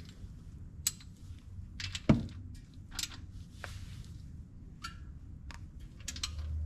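Scattered light clicks and taps, with one louder knock about two seconds in, over a faint low hum.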